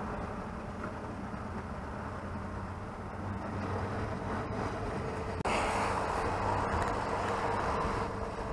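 A boat engine running with a steady low hum, with water moving around the hull. About five and a half seconds in, a louder rushing noise comes in suddenly and holds.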